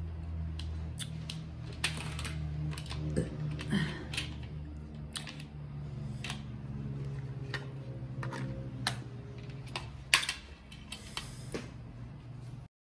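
Cooked crab shell being cracked and picked apart by hand: irregular sharp clicks and crackles of breaking shell, over a steady low hum. All sound cuts off near the end.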